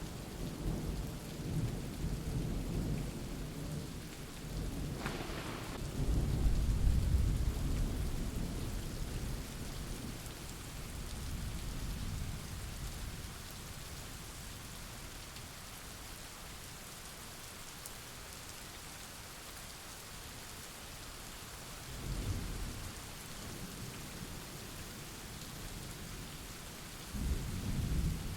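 Steady heavy rain with thunder rumbling. One long roll of thunder builds about five seconds in, and shorter rumbles come near the end.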